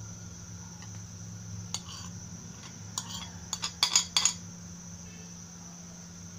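A metal spoon scraping and clinking against a ceramic plate as fried chicken pieces are pushed off it into a pan of gravy: a few single clicks, then a quick cluster of louder clinks about four seconds in. A low steady hum runs underneath.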